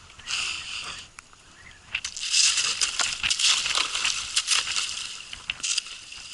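Ice crunching and rattling as a boat's hull breaks through it. There is a short burst near the start, then a longer, louder stretch of crackling with many small cracks through the middle.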